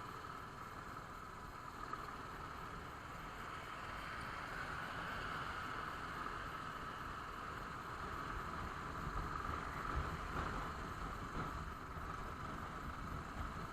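Royal Enfield Classic 350 single-cylinder motorcycle on the move, its engine and the wind heard low and steady, a little louder toward the end.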